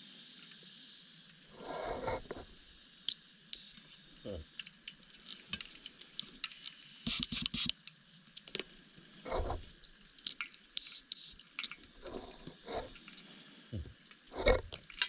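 Underwater sound on a closed-circuit rebreather wreck dive: a steady faint hiss with scattered clicks and short gurgling bursts, and sharp double clicks about 7 and 11 seconds in.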